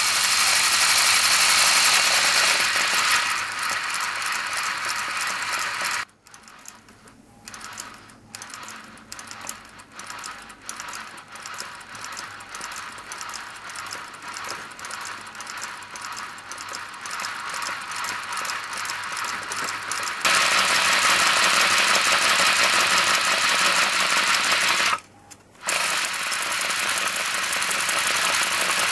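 Aster BR 52 model locomotive's chassis and valve gear running fast on compressed air: a dense, quick rattle of rods and motion with air hiss. About six seconds in it drops to slow, separate ticks, then runs up to speed again around twenty seconds in, with a half-second break shortly after.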